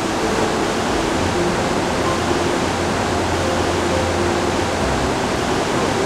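Blackwater Falls rushing: a steady, unbroken hiss of falling white water.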